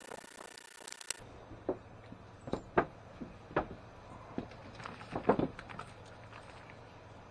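Handling of a blister-packed Inferno propane torch kit on wooden boards: a series of six or seven sharp clicks and knocks of plastic packaging and metal parts, the loudest near the middle and toward the end.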